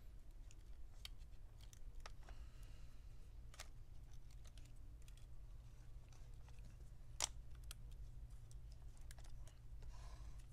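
Light, scattered clicks and taps of a laptop motherboard and its plastic chassis being handled and eased loose by gloved hands, with one sharper click about seven seconds in, over a faint steady low hum.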